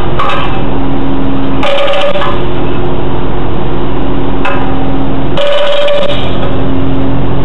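Mini excavator's diesel engine running under hydraulic load, a steady drone with a higher whine coming and going a few times as the boom and bucket push on the pipe.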